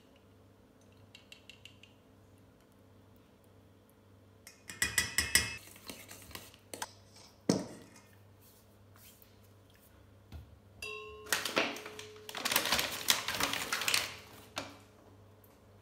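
A metal spoon clinking and scraping against a stainless steel mixing bowl, then a single knock a couple of seconds later. Near the end comes a longer stretch of paper rustling as a paper bag is opened.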